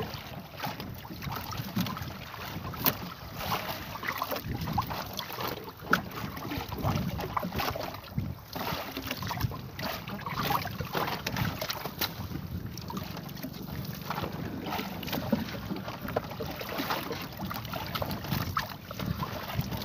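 Wet fishing net being hauled in by hand over a small boat's side: irregular splashing and dripping water with the net rustling and knocking against the hull.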